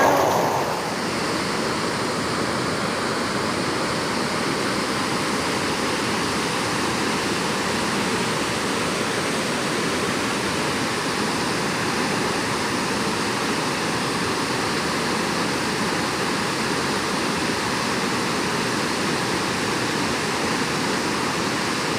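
Steady rushing water, like a mountain stream or waterfall, as an even hiss that holds at one level throughout.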